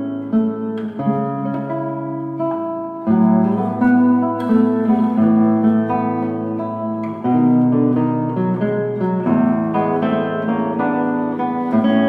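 Instrumental background music led by plucked acoustic guitar, its chords and bass notes changing every couple of seconds.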